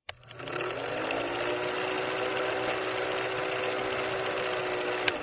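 Old film projector running: a steady rattling whir with a hum that rises briefly as it gets up to speed, and a sharp click just before it stops. This is the stock sound effect that goes with a vintage film-leader countdown.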